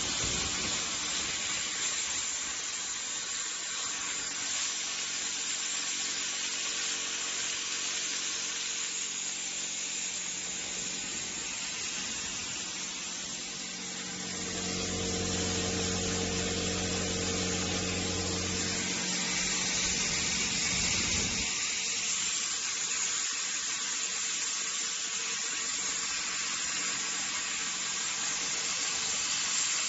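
Plasma cutter running with a steady hiss of air and arc. A low hum joins about halfway through and stops about two-thirds of the way in.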